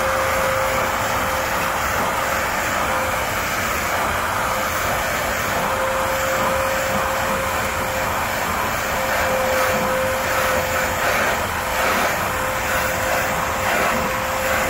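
Professional steam cleaner running, its nozzle jetting steam into a fabric seat with a steady hiss over a constant whine.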